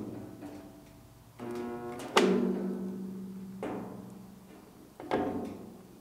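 Background music with slow, ringing percussive notes: a strong struck note about two seconds in that holds a low tone for over a second, and another about five seconds in.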